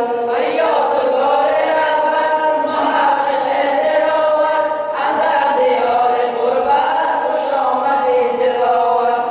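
A voice singing a slow, melodic chant, drawing out long held notes that slide up and down in pitch.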